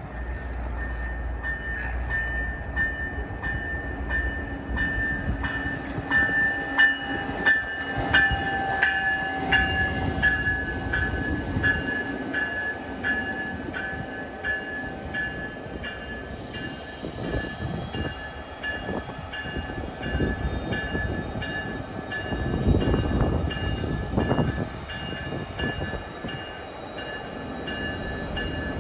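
Amtrak passenger train, led by a Siemens Charger diesel locomotive hauling Siemens Venture coaches, approaching and passing close by. It is loudest as the locomotive goes past, followed by the rumble of the coaches' wheels on the rails. Throughout, a steady ringing tone sounds, with sharp repeated strikes about twice a second in the first half.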